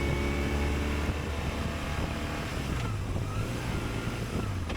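Motorcycle engine running steadily while riding, heard through wind noise, most likely the BMW R1150RT's boxer twin.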